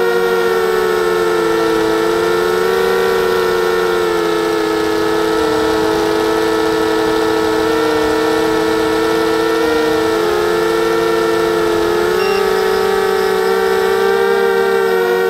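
250-size FPV racing quadcopter's motors and propellers whining steadily, heard up close from the onboard camera. The pitch dips slightly a few times and rises a little near the end as the motor speed changes.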